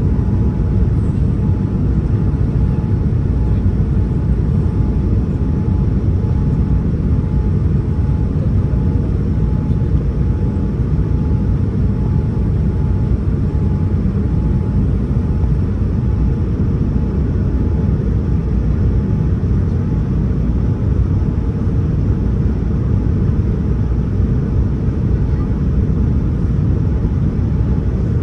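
Steady low rumble of engine and airflow noise inside the cabin of a Boeing 787-9 airliner, unchanging in level.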